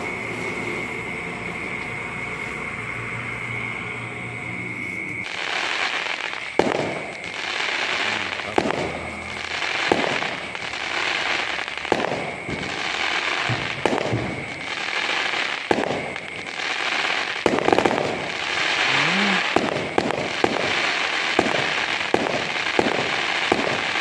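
For about five seconds a steady hiss with a high tone, then aerial fireworks bursting at a distance: a string of sharp bangs over crackling, the bangs coming faster toward the end.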